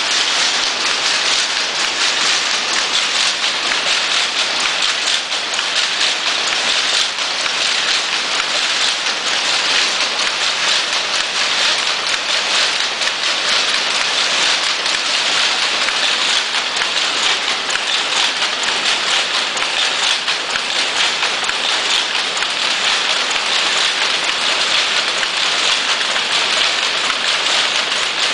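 Jacquard rapier loom running, a dense, steady rattling clatter of very fast ticks with no pauses.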